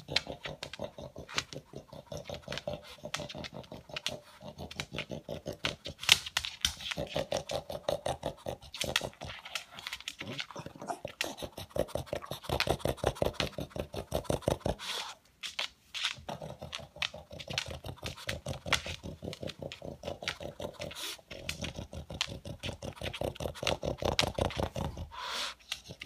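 Pug sniffing and snuffling hard along the floor for leftover food pellets, a fast train of noisy sniffs several a second that sounds like a noisy vacuum cleaner. It pauses briefly twice.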